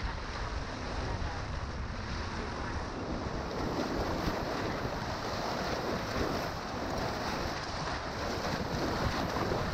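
Wind buffeting the microphone over rushing, churning river water as a pontoon raft's bow runs into the waves of a rapid; a steady, even noise with no clear engine tone.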